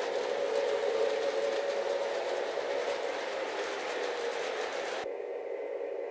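Lionel O-gauge Rock Island Rocket train, led by two E6 diesel locomotives, running on Fastrack: a steady hum and rolling noise with faint clicks from the track. It cuts off abruptly about five seconds in, leaving a fainter hum.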